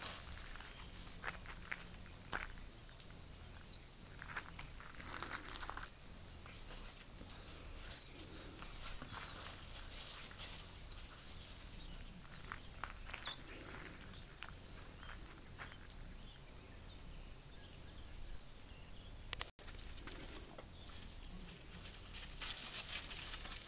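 Dogs' paws scuffling and crunching on loose gravel as they tug and wrestle over a bra, with scattered crunches over a steady high hiss.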